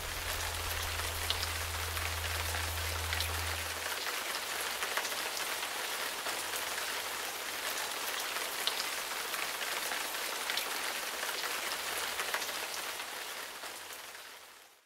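Steady rain falling, with scattered small drop ticks over an even hiss. A low bass note from the end of the music hangs under it for the first few seconds, and the rain fades out near the end.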